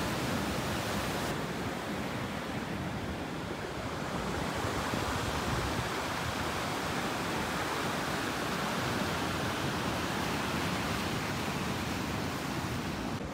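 Ocean surf breaking and washing up over a stony beach: a steady rush of waves.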